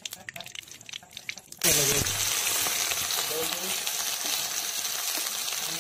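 Hot mustard oil in a kadhai ticking and crackling faintly, then a sudden loud sizzle about a second and a half in as chopped onions go into the oil, which keeps frying with a steady sizzle.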